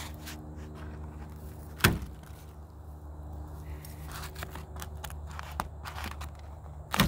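Footsteps on dry grass and pine needles and handling around a tarp's twine, with two sharp clicks, about two seconds in and at the very end, over a steady low hum.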